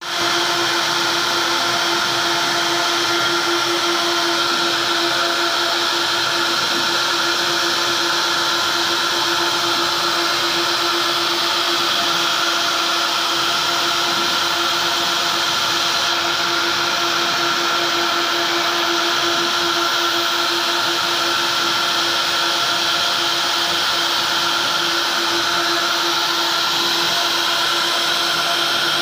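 Double-head CNC router carving wooden door panels: its spindles run with a steady whine over the hiss of the bits cutting the wood.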